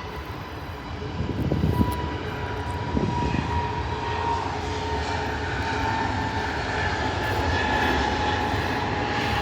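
Jet airliner's engines passing close by, a steady roar that grows louder about a second in, with a high whine that slowly falls in pitch.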